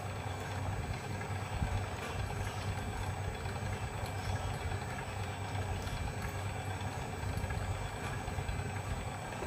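Homemade coil-winding machine driven by a brushless motor, running steadily as it winds enamelled copper wire onto a bobbin: an even low hum with a faint steady high whine.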